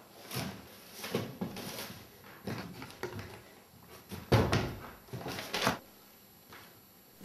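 A wooden-seated chair with a metal frame being handled and moved on a stage floor: a series of knocks and scrapes, the loudest a sharp knock about four and a half seconds in.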